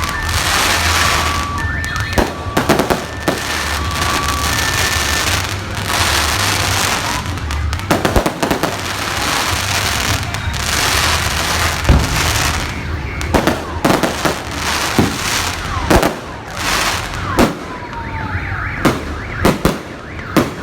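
Fireworks display: aerial shells banging one after another with dense crackling between them, and a few falling whistles near the end. During the first five seconds, an electronic alarm beeps alternately high and low, as a car alarm set off by the blasts would.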